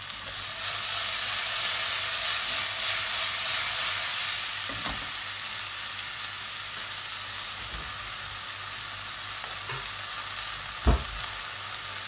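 Garden peas sizzling in hot oil in a nonstick frying pan, a steady frying hiss that is a little louder in the first few seconds. A single dull thump near the end.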